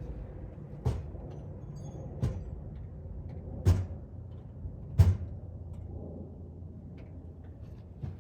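Parts and tools knocking and clunking against the engine while something is worked out of a cramped engine bay, five sharp knocks a second or so apart, the loudest about five seconds in, over a low steady hum.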